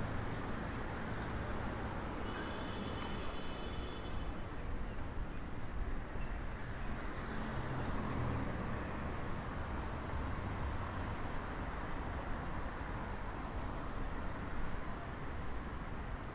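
City street traffic: cars driving past on a multi-lane road, a steady mix of tyre and engine noise. A faint high tone is heard briefly about two seconds in.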